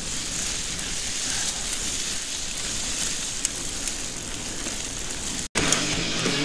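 Specialized Hardrock mountain bike rolling along a dirt road: a steady noise of tyres on the ground and wind rushing past. It cuts off abruptly near the end.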